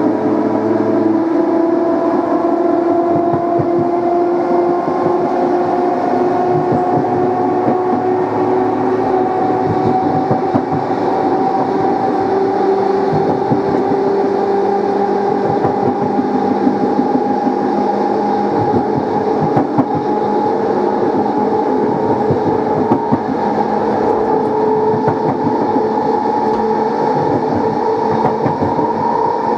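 Dutch NS Plan V (Mat'64) electric multiple unit's traction motors whining, several tones rising slowly in pitch as the train picks up speed, with the clatter of wheels over rail joints.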